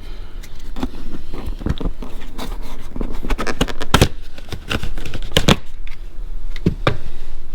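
Plastic dash trim panel of a Subaru WRX being pulled out to reach a screw behind it: rustling and small clicks, with sharp snaps about four and five and a half seconds in.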